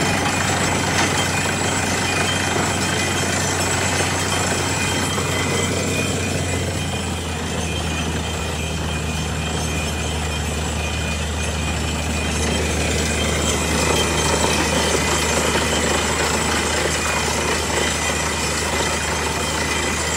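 Truck-mounted borewell drilling rig running steadily with a constant low hum, while air-blown water and rock cuttings spray out of the bore and splash onto the ground.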